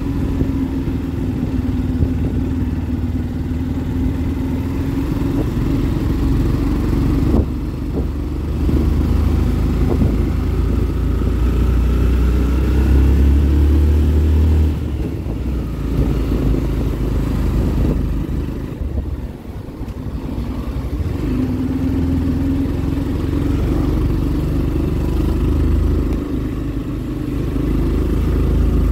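Motorcycle engine running as it is ridden at low town speed, with a heavy low rumble underneath. The engine note drops back and picks up again a few times, as with throttle changes.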